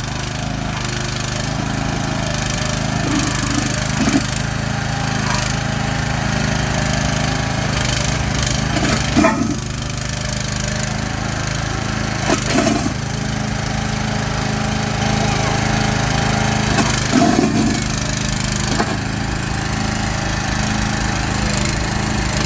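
Engine of a mini walking excavator running steadily, with a few short knocks.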